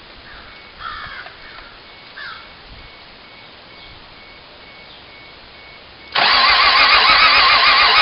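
A vehicle's starter motor cranks an engine that won't start. The loud cranking whine begins suddenly about six seconds in, its pitch wobbling rhythmically with each compression stroke. Before it there is a faint, regularly repeating beep and a couple of small knocks.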